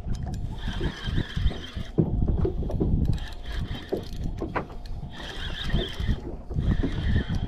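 Penn Slammer spinning reel cranked in spells as a fish is pumped up, with a high, steady whir from the reel during each spell of winding. Wind rumbles on the microphone underneath.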